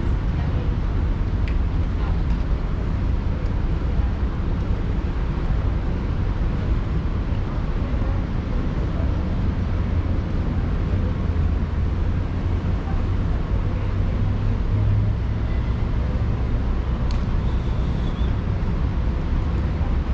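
City street ambience beside a road: a steady low rumble of traffic.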